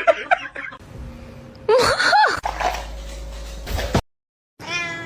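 Short bursts of laughter, then about two seconds in a brief pitched cry that slides up and down. After a moment of silence, a house cat starts meowing near the end.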